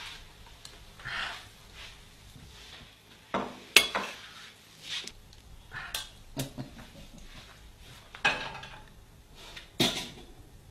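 Kitchenware clinking and knocking as a frying pan, utensil and plate are handled at the stove: a handful of separate sharp strikes, the loudest about four seconds in.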